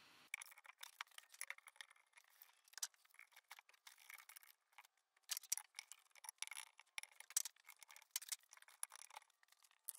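Faint, irregular clicking and rattling of Irwin quick-grip bar clamps being squeezed and set along a glued wooden handle blank, busiest in the second half.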